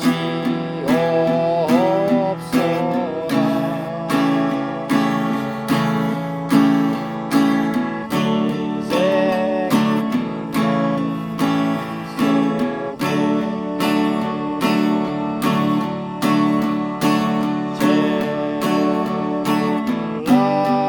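Acoustic guitar strummed in a steady, even rhythm, playing a slow song accompaniment.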